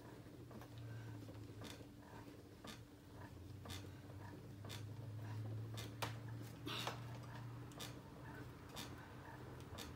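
Faint scratching and clicking of gold wire being drawn by hand, over a low steady hum. A sharp tick sounds about once a second.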